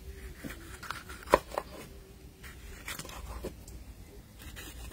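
A kitchen knife cutting scotch bonnet pepper on a cutting board: a few short, sharp taps at irregular intervals, the loudest a little over a second in.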